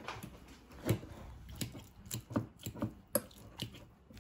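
Roasted sweet potato cubes being mashed by hand in a glass bowl: a run of irregular knocks and clicks, roughly two a second, as the utensil strikes the food and the glass.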